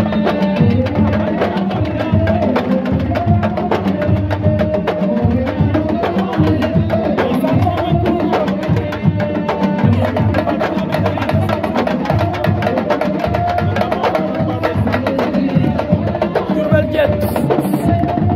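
Fast sabar drumming, dense rapid hand-and-stick strokes, with a voice singing a wavering line over the drums.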